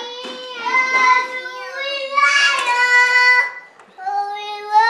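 A young child singing long, high held notes, each sliding up at its start, with a short break about three and a half seconds in before the singing starts again.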